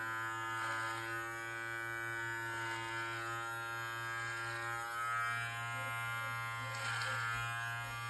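Live Bearded MT-1 beard trimmer running with a steady electric buzz as its 9 mm guard is drawn up through the beard on the side of the face. The cutting noise swells briefly a few times as it bites into the hair.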